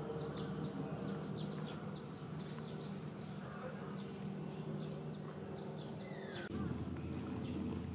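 Small birds chirping in quick runs of short, high, falling notes over a steady low background hum. The hum grows louder near the end.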